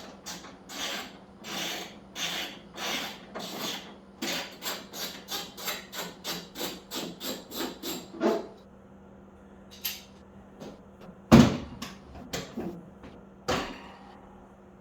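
Hand tools working on motorcycle hardware: a run of short, even scraping strokes that speed up from under two a second to about three or four a second, then a few separate knocks, the loudest about eleven seconds in.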